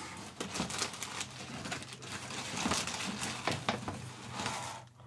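Hands rummaging through and handling small objects, with irregular rustling and small clicks and knocks.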